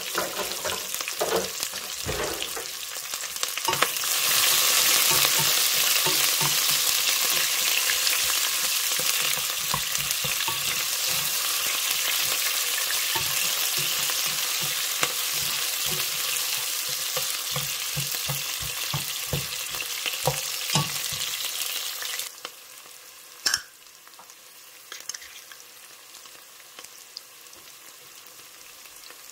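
Sliced onions and cumin seeds sizzling as they fry in hot oil in a pot, stirred with a spoon that knocks and scrapes against the pot. The sizzle gets louder about four seconds in and drops suddenly to a quiet sizzle near the end, with a few sharp clicks.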